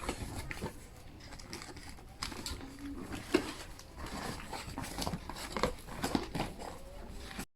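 Scattered light taps, clicks and rustles of small plastic toy pieces and packaging being handled.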